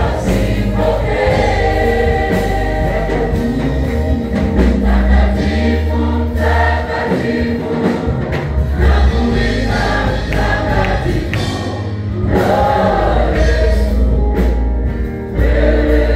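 A worship group sings a gospel song in chorus, with a loud, deep bass line and a beat underneath.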